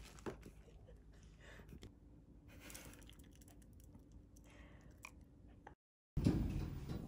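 Faint chewing and small clicks of a spoon and sieve in a quiet room. Near the end the sound cuts out for a moment, then a louder rumbling noise begins.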